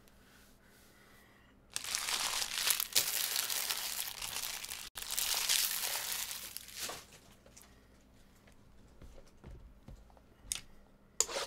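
Plastic wrapping being crinkled and torn, loud for about five seconds with a brief break in the middle, then quieter rustling and two sharp crackles near the end as a shrink-wrapped card box is handled.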